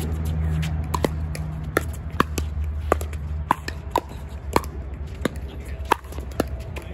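Pickleball paddles striking the hard plastic ball and the ball bouncing: a run of sharp pops, about two a second and uneven, over a low rumble that fades about halfway through.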